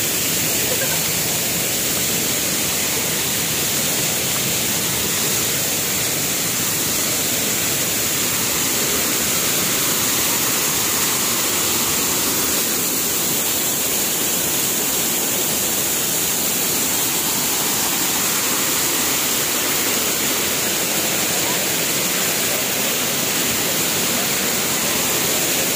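A waterfall rushing down a rocky cascade close by: a steady, unbroken roar of falling water.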